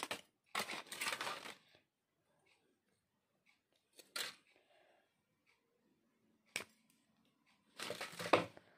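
Foil wrapper of a chocolate bar crinkling in short bursts as the bar is handled, with a single sharp snap midway as the bar is broken into pieces.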